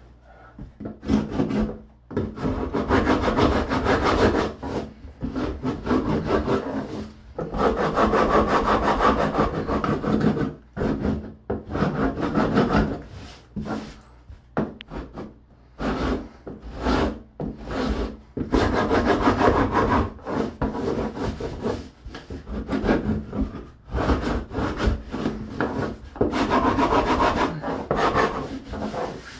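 A hand tool scraping through drywall in repeated strokes, in stretches of a second or more with short pauses between them.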